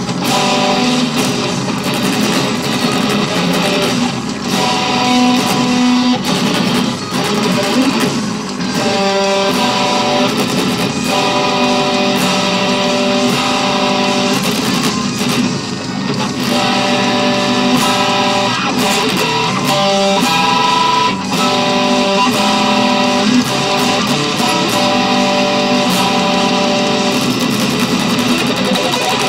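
Extended-range electric guitar playing a progressive metal instrumental: continuous runs of picked notes and ringing chords.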